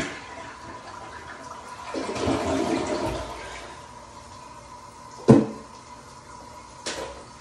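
Rubber plunger working a clogged toilet: water sloshing and gurgling in the bowl for about a second, then a sharp knock, the loudest sound, and a lighter click near the end.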